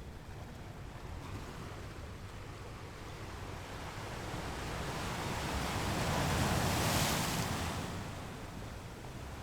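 Ocean surf breaking on a rocky beach: a wave's rush builds, is loudest about two-thirds of the way through, then ebbs, over a steady low rumble of the sea.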